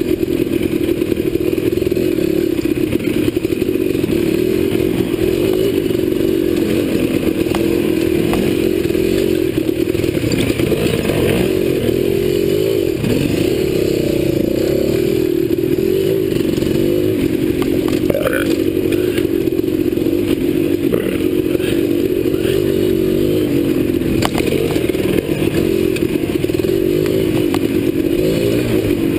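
Dirt bike engine running on an off-road trail, its revs rising and falling over the ground, with occasional clatter from the bike.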